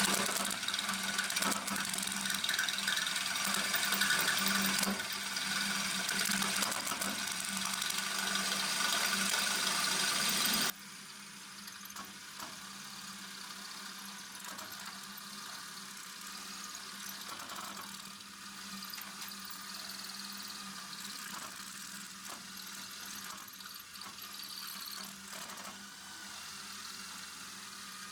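Electric drill boring into a steel door hinge, the bit squealing in the metal over a steady motor whine. About ten seconds in the sound drops suddenly to a quieter, steady drilling sound.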